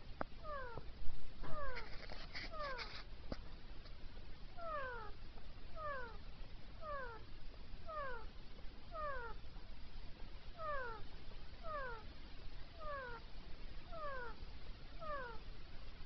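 Female Indian ringneck parakeet giving a steady series of short, downward-sliding calls, about two a second. A louder, harsher burst comes between about one and three seconds in.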